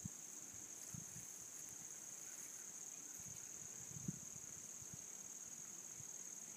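Steady, high-pitched chorus of insects, an unbroken shrill drone, with a few soft low thumps, the loudest about four seconds in.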